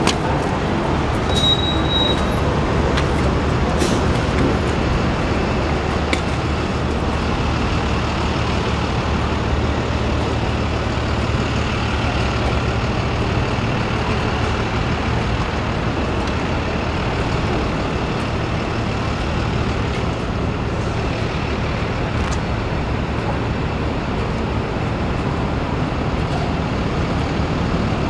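Busy city street traffic: a steady wash of road noise with the low rumble of heavy vehicle engines, strongest through the middle. A brief high squeal sounds about a second and a half in.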